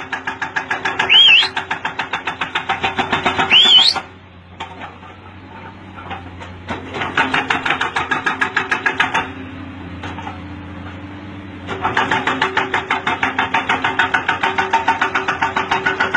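Heavy construction machinery working rock: a rapid, even mechanical pounding of about five or six beats a second over a low steady engine hum, coming in three bursts with pauses of a couple of seconds between.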